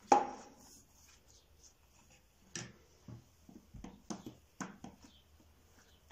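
Hands folding a buttered sheet of hand-rolled gözleme dough on a wooden table. A sharp knock comes just after the start, then a few soft taps and thumps as the dough is pressed and turned over.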